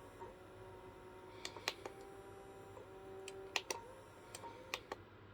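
Electronic cat toy that has stopped spinning, handled with a string of sharp plastic clicks, over a faint steady whine that shifts pitch in small steps.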